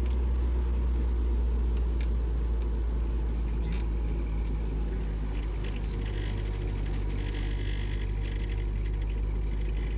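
Steady low rumble of a car's engine and tyres heard from inside the cabin while driving a winding paved road, with a few faint clicks.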